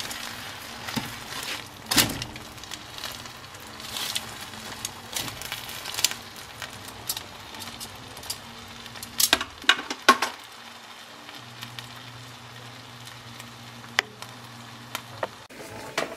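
Hot pan juices sizzling around baked chicken pieces in a glass baking dish, with a few sharp clicks of a metal utensil against the dish, three of them close together about halfway through.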